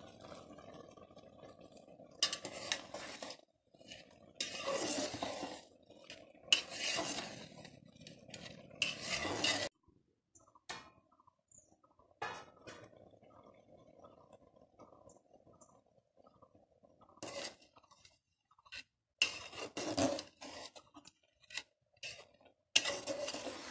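Metal ladle scraping and clanking against an aluminium cooking pot as boiling bamboo shoots are stirred, in several bursts separated by quieter pauses.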